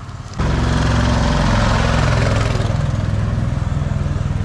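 A vehicle engine idling steadily with a loud, low hum. It starts abruptly about half a second in.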